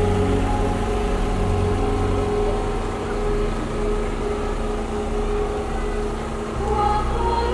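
An engine running steadily at a low hum, with a steady drone above it; the low hum shifts lower about six and a half seconds in.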